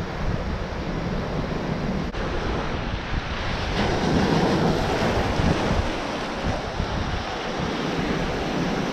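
Ocean surf breaking and washing over boulders, a steady rushing wash that swells louder about four seconds in, with wind buffeting the microphone.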